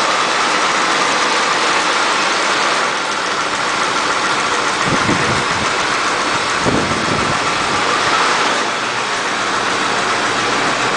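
Freshly rebuilt engine of a 1987 Jaguar idling steadily, with two brief deeper bursts about five and seven seconds in.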